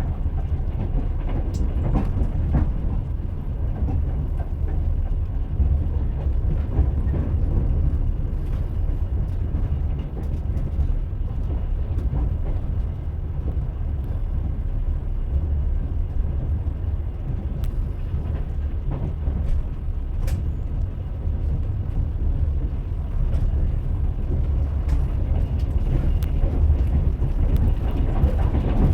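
Train in motion: a steady low rumble of the running gear, with a few faint, irregular clicks of the wheels over the rails.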